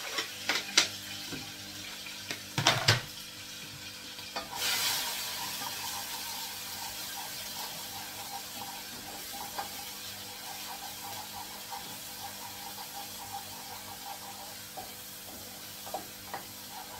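Chopped vegetables knocked off a board into a hot saucepan, a few sharp knocks in the first three seconds, then a sizzle in the oil that starts suddenly about four and a half seconds in. The sizzling carries on with light clicks of a wooden spoon stirring the pan.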